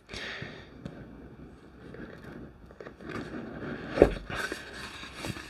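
Tarot deck box and guidebook packaging being handled and turned over: soft scraping and rustling, with a sharper tap about four seconds in.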